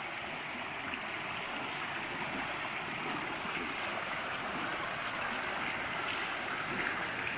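Creek water rushing over rocks, a steady, even rush.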